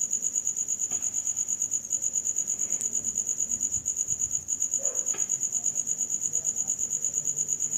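A cricket chirping steadily, one high note pulsing fast and even, over faint scrapes of a metal ladle stirring onions in a metal kadai.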